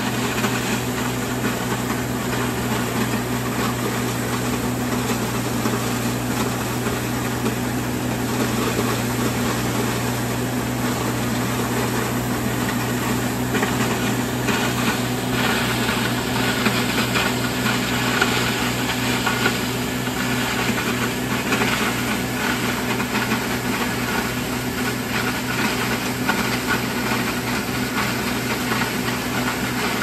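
Oliver 1850 tractor engine running steadily under load, driving an old, worn feed grinder through its PTO shaft as it grinds ear corn into cattle feed. The noise is loud and unbroken, a constant low hum under a dense grinding hiss.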